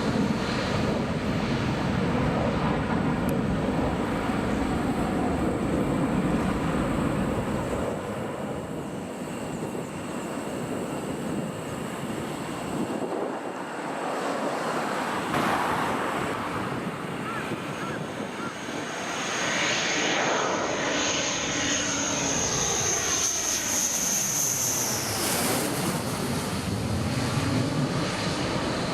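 F-15 fighter jet on landing approach, passing low overhead. Loud jet rumble builds to a high engine whine, and the whine falls in pitch as the jet goes past, then cuts off sharply a few seconds before the end.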